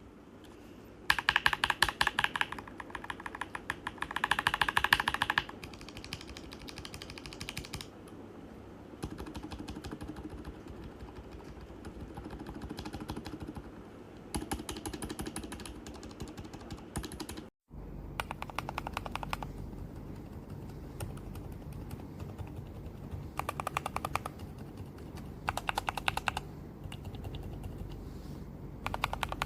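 Rapid typing on a mechanical keyboard fitted with Outemu Lime silent tactile switches: bursts of quick keystrokes lasting a second or two, with quieter typing between them. The recording drops out briefly about halfway through, then the bursts resume.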